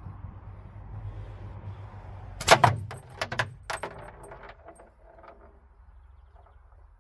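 A 10mm steel ball strikes a homemade slingshot target about two and a half seconds in with a sharp metallic hit, and the target's rattle jangles in a string of clicks that die away over about two seconds.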